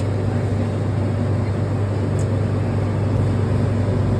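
Steady low motor hum with an even rush of air: an electric blower or fan running at a charcoal grill.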